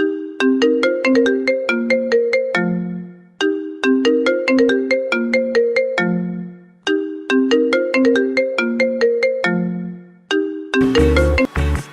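Mobile phone ringtone: a short melody of struck notes ending on a low held note, repeating about every three and a half seconds. Near the end it gives way to louder electronic music with a heavy bass beat.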